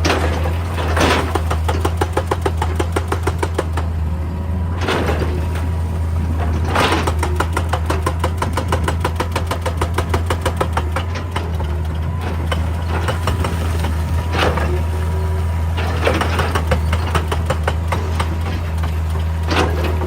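Excavator's diesel engine running under load with a rapid, steady hammering of a hydraulic rock breaker, many blows a second, and several louder surges of noise along the way.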